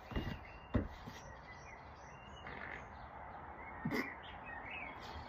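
Birds chirping faintly in the background, with a few brief low thuds: one at the start, one just under a second in, and one about four seconds in.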